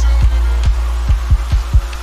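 Electronic music with a deep, steady bass and a quick run of booming kick drums.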